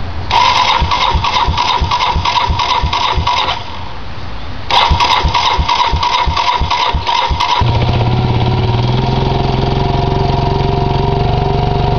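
Yamaha YTM225DX three-wheeler's single-cylinder engine cranked on its electric starter in two tries of about three seconds each, a short pause between, catching near the end of the second try and settling into a steady idle. It is the engine's first start after a rocker arm replacement.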